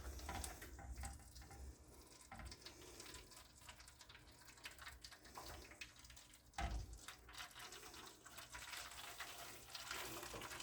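Hot water being poured faintly from a coffee maker's pot into a baking pan, filling a water bath around ramekins of crème brûlée. A brief low bump about two thirds of the way in.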